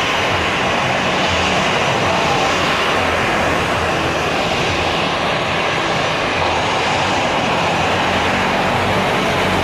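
Airbus A320-233's IAE V2500 turbofan engines running steadily at low taxi thrust as the airliner rolls slowly.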